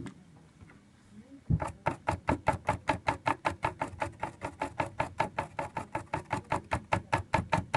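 A toothbrush scrubbing a soldered circuit board, rapid back-and-forth strokes at about six a second, starting about a second and a half in. It is cleaning flux residue off the freshly soldered connector pins.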